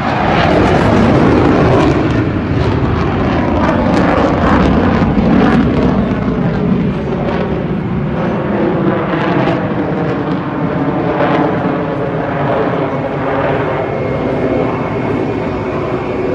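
Jet aircraft flying overhead, loud engine noise swelling in the first second or two and then staying loud, with a slowly wavering, sweeping tone as it passes.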